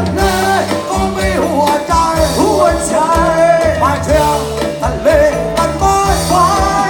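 Live band playing a Thai rock song: a bending lead melody over a steady bass line.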